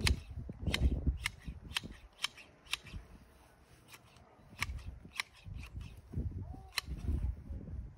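Okatsune hand hedge shears snipping a shrub: a string of sharp, crisp metallic snips at an uneven pace, pausing for a moment midway, with low handling noise in between.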